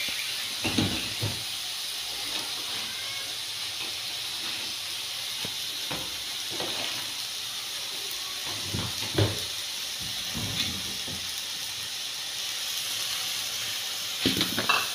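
Ground meat sizzling steadily in hot oil in a wok, with a few short knocks and scrapes from stirring it, several of them near the end.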